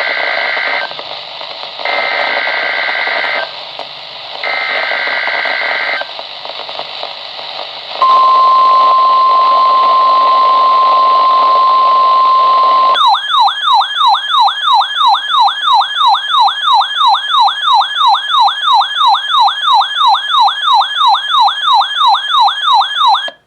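Three short buzzy bursts of EAS/SAME digital header tones, then the steady 1050 Hz NOAA Weather Radio warning alarm tone for about five seconds. After that a warbling electronic alarm, rising and falling about three times a second, sounds for about ten seconds and cuts off suddenly.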